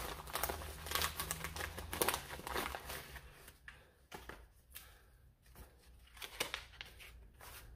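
Brown kraft paper packaging crinkling and rustling as a mailer bag is handled and opened and a small paper box is drawn out. The crinkles are busiest in the first few seconds, then come in sparser, scattered bursts.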